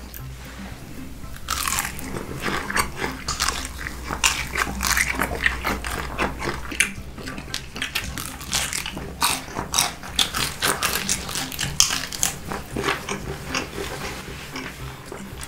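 Biting into and chewing a whole shrimp in spicy mala sauce: a long run of wet crunches that starts about a second and a half in.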